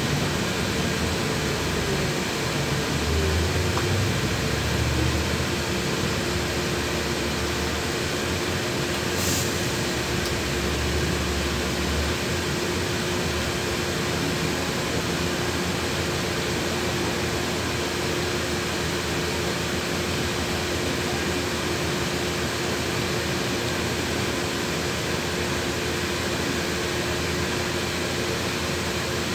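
Cabin noise inside a LiAZ 6213.21 articulated city bus: a steady hiss of fans and engine with a constant hum. A low rumble from driving fades after about twelve seconds as the bus comes to a stop, and there is one brief tick about nine seconds in.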